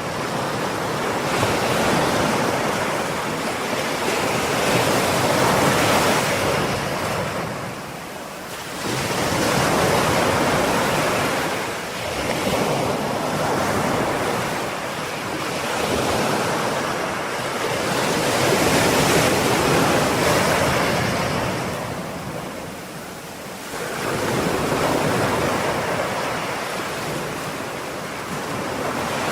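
Ocean surf: waves breaking and washing in, the roar swelling and ebbing every few seconds, with a deeper lull about 8 s in and again about 23 s in.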